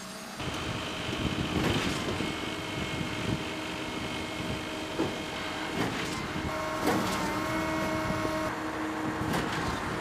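Heavy truck machinery of a concrete pour, a concrete pump truck and mixer truck, running with a steady hum and several held whining tones that shift a little over six seconds in. A few sharp knocks stand out, one about seven seconds in the loudest.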